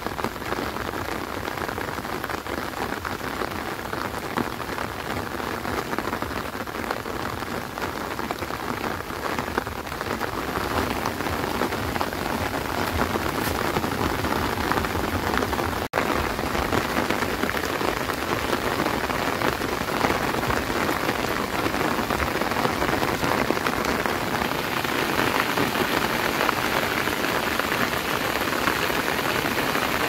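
Steady rain falling on vegetation, fields and a wet road. It cuts out for an instant about halfway, then grows a little louder toward the end.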